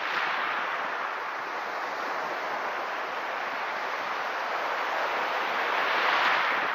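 Shallow sea surf washing up the sand around a microphone at the water's edge: a steady hiss of foaming water that swells loudest as a wave rushes in near the end.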